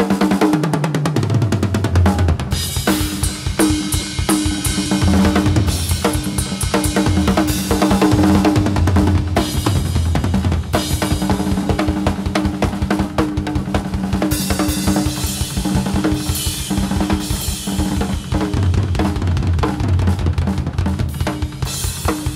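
Rock drum solo on a full kit: fast, dense playing on bass drums, snare, toms and cymbals. It starts suddenly with a fill stepping down the toms.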